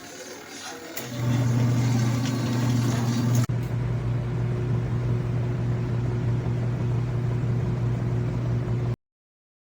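Small electric motor of a ZENY portable mini washing machine running with a steady low hum, starting about a second in and changing abruptly midway. The sound cuts off suddenly near the end.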